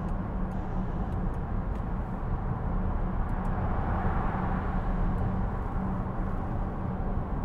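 Inside the cabin of a 2013 Range Rover Vogue 3.0 TDV6 at motorway speed on a wet road: a steady rush of tyre and road noise over a low hum, swelling a little about halfway through. Wind noise comes in through the panoramic sunroof, which is left in its tilt position.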